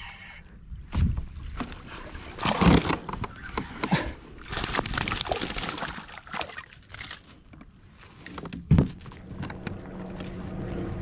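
Knocks and thumps on a fishing kayak with water splashing, the loudest thumps about three and nine seconds in.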